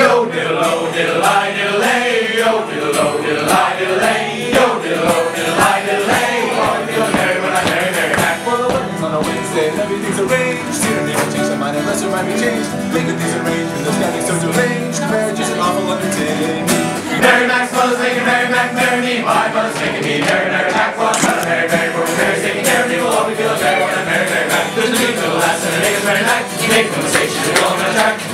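Group of men singing together in unison to a strummed acoustic guitar, an upbeat folk song.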